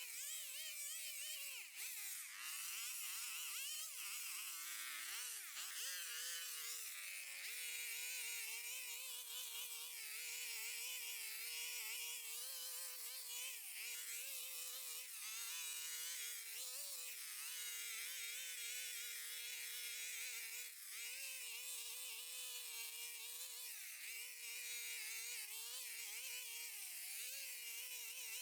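A small motor buzzing steadily, its pitch wavering and dipping during the first several seconds, then holding mostly level with brief dips, as of a power tool working under changing load.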